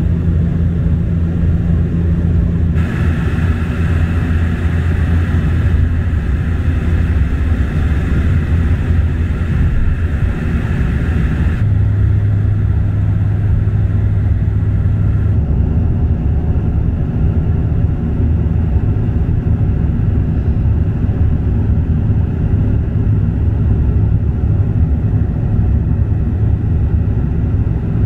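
Cabin noise of a Bombardier DHC8-Q400 turboprop airliner, its Pratt & Whitney PW150A engines and propellers making a loud, steady low drone during the approach to landing. A higher whine joins about three seconds in and drops out around twelve seconds, and the low drone shifts pitch a few times.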